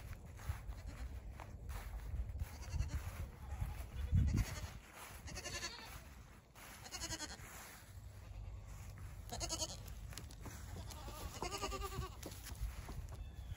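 Miniature goats bleating: four separate wavering bleats, each up to about a second long. A low thump about four seconds in is the loudest sound.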